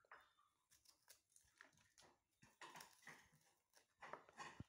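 Near silence, with faint scattered clicks and soft rustles of green vegetables being trimmed by hand.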